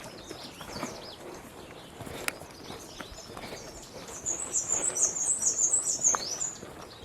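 A songbird sings a rapid, high-pitched run of chirps for about two and a half seconds, starting about four seconds in. Scattered footsteps sound on the trail around it.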